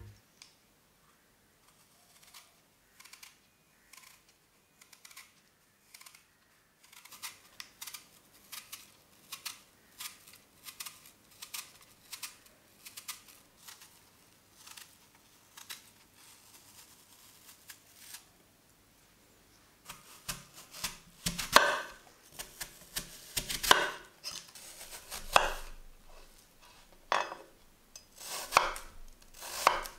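An apple being peeled with a Y-peeler, faint scraping ticks with each stroke, then from about twenty seconds in a chef's knife cutting the peeled apple into slices on a wooden cutting board, sharp knocks of the blade on the board about once a second.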